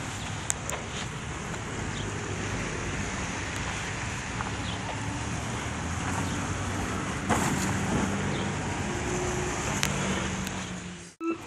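Steady engine and road noise from a moving vehicle, with a few faint clicks. The sound drops out briefly just before the end.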